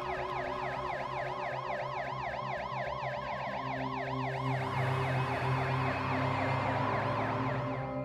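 Police car siren sound effect in a fast yelp, rising and falling about five times a second over a steady background music drone. The siren turns rougher about halfway through and cuts out near the end.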